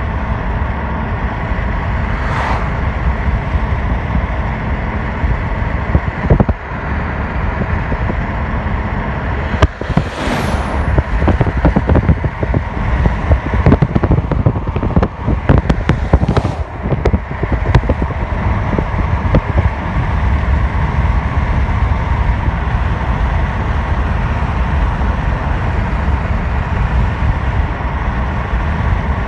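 Steady road and tyre noise inside a moving car, with a run of sharp clicks and knocks in the middle.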